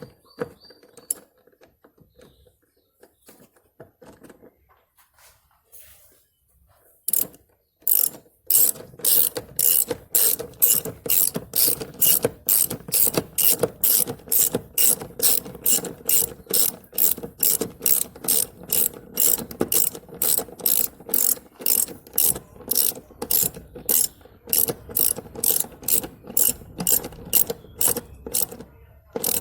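Hand ratchet wrench being worked in quick, steady strokes, clicking about three times a second, most likely tightening seat bolts. It starts about seven seconds in, after a few faint knocks and handling sounds, and stops just before the end.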